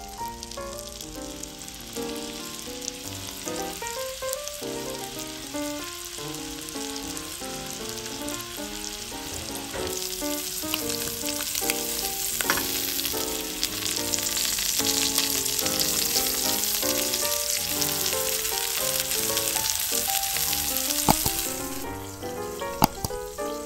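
Chicken breasts sizzling as they fry in foaming butter and oil in a nonstick pan, the sizzle growing louder about halfway through and dropping away near the end. Light background music with a stepping melody plays underneath, and a sharp click stands out near the end.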